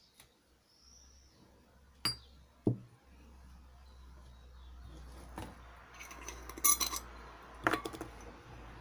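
Stainless-steel saucepan and glass jars knocking and clinking on a table: two sharp knocks about two seconds in, then a run of light, ringing clinks of glass and metal near the end, over a faint low hum.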